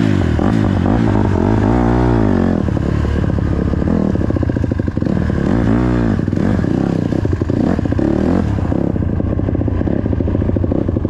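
Dirt bike engine running while being ridden on a trail, its revs rising and falling twice, clearly in the first half, over a steady rush of noise.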